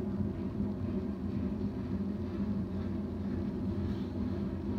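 Railroad train passing: a steady low rumble with a droning hum.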